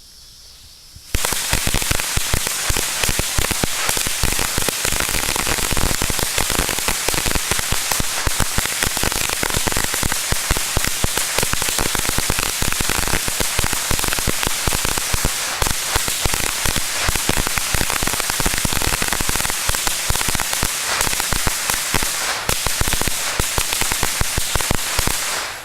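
A long string of firecrackers going off, a dense rapid rattle of pops that starts about a second in, runs for over twenty seconds and stops abruptly near the end.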